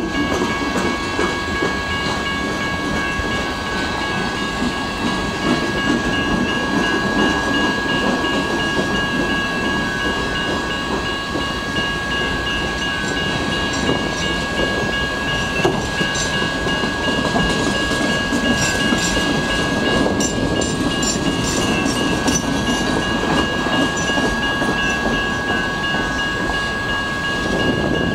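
Freight train of boxcars rolling steadily through a grade crossing, its wheels clattering over the rails. Over it, the crossing's electronic bells ring continuously.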